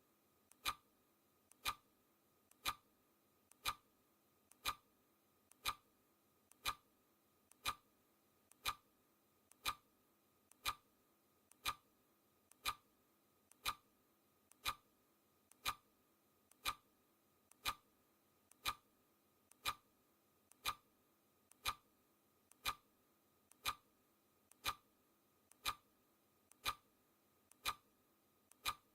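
Clock ticking sound effect, one tick each second, each a sharp click with a fainter click just before it.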